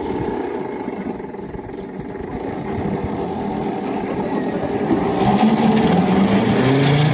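A machine's engine running steadily under load, growing louder over the last couple of seconds.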